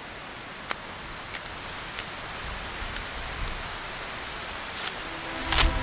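Steady outdoor hiss of wind, with low gusts buffeting the microphone from about halfway and a few faint ticks. A louder brief crackle comes near the end.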